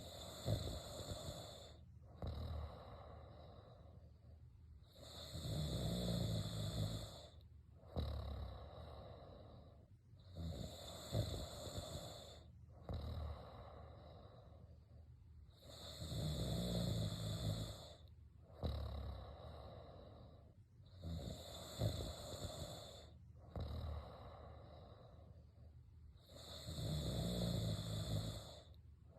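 A sleeping person snoring. A loud snore comes about every five seconds, six in all, with a softer breath sound between each.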